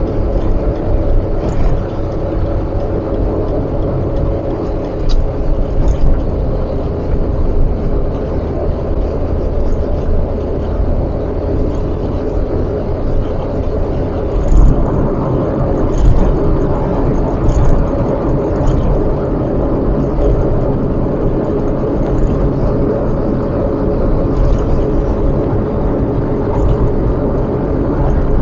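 Car on the move: steady engine and road noise.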